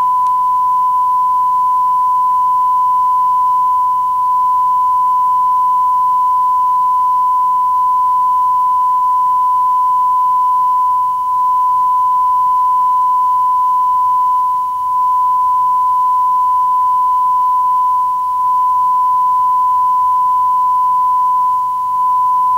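Broadcast test-card tone: one steady, unbroken sine tone at a single pitch, with a few brief dips in level.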